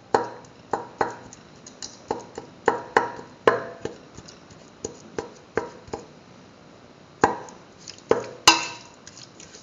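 Cooked potatoes and chicken being mashed in a pressure cooker: a masher knocking against the pot at an irregular pace, about one or two knocks a second.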